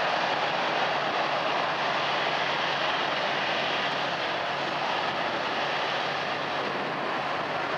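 Airbus A330 airliner's jet engines running steadily at low power as it taxis on the runway: an even rush of engine noise with no sharp changes.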